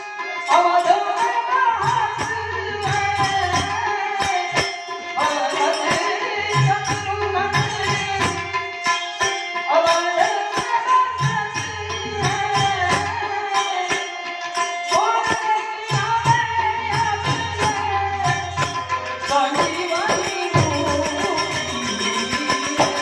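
Santvani devotional folk song: a voice singing bending melodic lines over tabla and jingling hand percussion, with a low beat pulsing about every two seconds.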